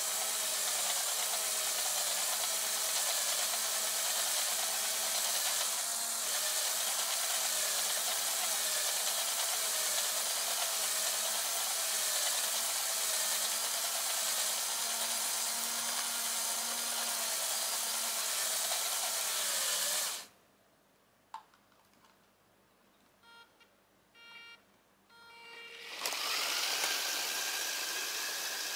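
Lego Technic electric motor and gearing driving the train lift, a steady whirring whine that wavers slightly in pitch and then cuts off suddenly. A run of short beeps follows. Near the end a hiss with a whine rises and holds.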